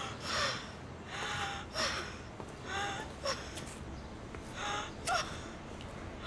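A woman sobbing: gasping breaths about once a second, each carrying a short, broken, whimpering cry.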